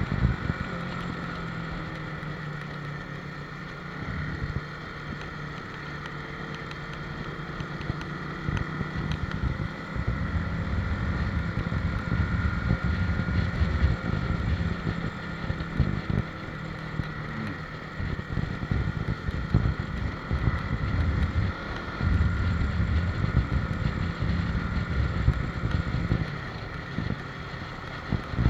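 Motorcycle engine running under way, with heavy wind buffeting on the microphone; the engine note rises and falls as the bike rides on.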